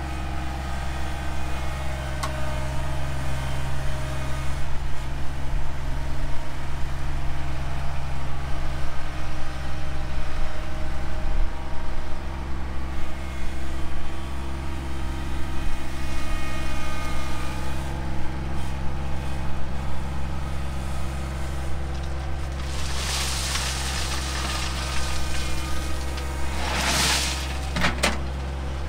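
John Deere 2025r compact tractor's three-cylinder diesel engine running steadily as it drives a loaded front-end-loader bucket of rock. In the last several seconds, a loud rushing rattle of rock spilling out of the tipped bucket.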